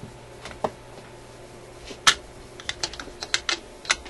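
A string of sharp, irregular clicks and taps as hands work the Newcomb TR-1656-M turntable, pressing the spring-loaded 45 rpm centre ring down around the spindle. The loudest click comes about two seconds in, and a quicker run of clicks follows.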